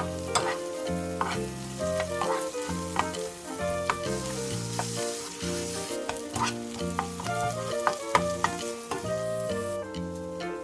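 Food sizzling as it fries in a pan, with scattered sharp clicks, under background instrumental music with a stepping melody.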